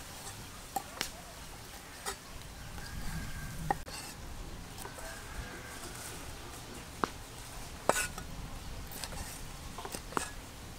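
Meat cleaver chopping raw chicken on a thick wooden chopping block: seven or eight sharp knocks, irregularly spaced, with pauses of a second or more between them.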